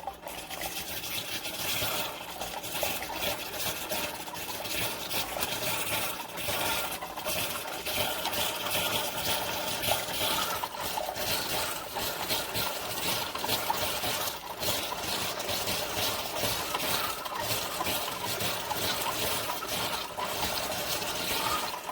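Amazon Basics single-serve coffee maker brewing a K-Cup pod: its pump runs steadily while hot water streams into the cup.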